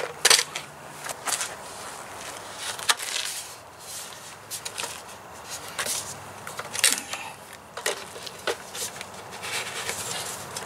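Irregular hard plastic knocks, clicks and scrapes as a blower tube is handled and pushed onto a Ryobi leaf blower's outlet.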